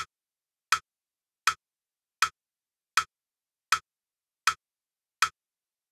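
Crotchet beat pulse of eight evenly spaced, identical metronome-style clicks at about 80 beats a minute: the count-in before the cello extract starts.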